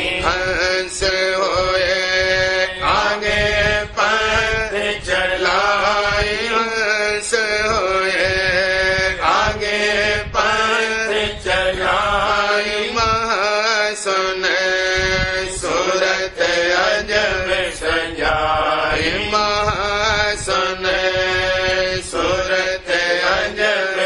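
Devotional chanting of a Radhasoami shabd (hymn), a voice singing a slow melody over a steady low drone.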